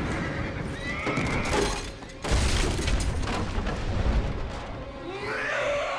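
Horse whinnying, with a sudden loud deep crash a little over two seconds in that rumbles on for a couple of seconds.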